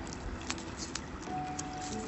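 Background music with held notes, over a few sharp snips of small scissors cutting fringes into a paper petal, two clear ones about half a second apart near the middle.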